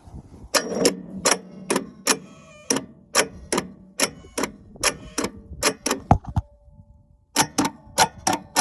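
Sharp metallic clicks, about two or three a second, as the starter button is pressed over and over. They stop briefly and then start again. The engine never cranks over, which the owner puts down to either a seized engine or a bad starter.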